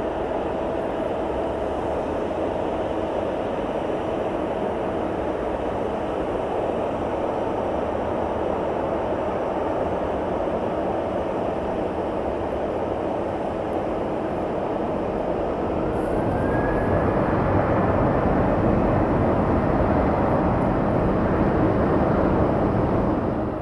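Jet airliner engines running with a steady noise. About two-thirds in, a whine rises and the sound grows louder, then drops away sharply at the end.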